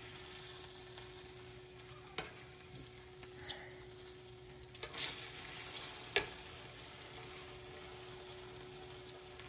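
Hot sausage links sizzling in olive oil in a frying pan, a steady hiss, with a few sharp clicks of metal tongs against the crock pot, the loudest about six seconds in.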